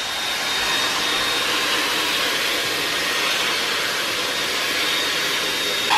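Xiaomi G9 cordless stick vacuum running steadily with its crevice tool: a constant rush of air with a high motor whine, sucking spilled powder off a fabric sofa cushion.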